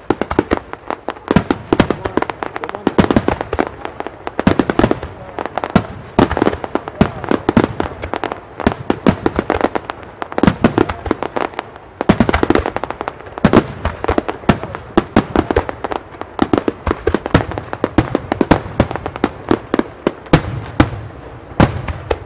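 Starmine fireworks barrage: many shells launching and bursting in rapid succession, with several sharp bangs a second and no let-up.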